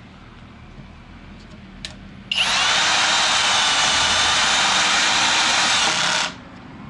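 Kobalt 24-volt XTR drill/driver at clutch setting 2.5 driving a screw. It starts a couple of seconds in, runs steadily for about four seconds, and stops abruptly once the screw is seated flush.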